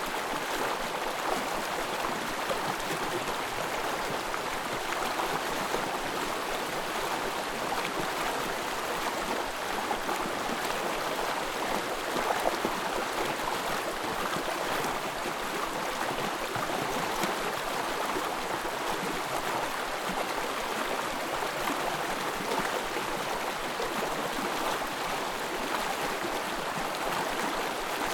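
Small forest stream babbling and trickling steadily over its bed.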